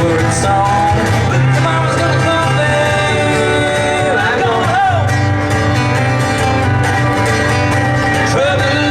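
Country or bluegrass-style music with plucked strings and singing, over a steady bass.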